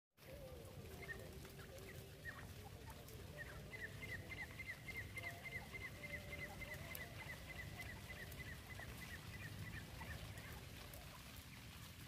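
Francolin giving soft, low clucking notes, with a fast run of short high chirps, about four a second, from about three seconds in until about ten seconds in, over a low background rumble.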